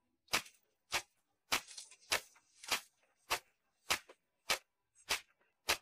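A steady ticking beat, a sharp click about every 0.6 seconds, from the percussion of the background music.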